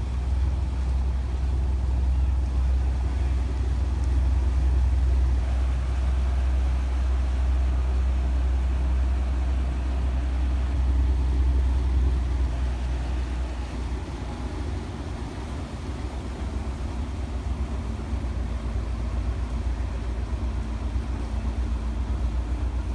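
Engines of a Coast Guard boat running under load as it tows another boat past, a steady low drone that is strongest through the first half and eases after about 14 seconds.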